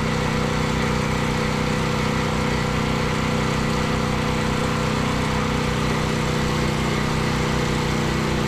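A small engine running steadily at an even speed, with a constant hum and a regular low throb.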